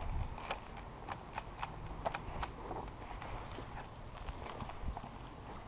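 A scattered run of sharp clicks and snaps, several a second at first, then sparser and fainter.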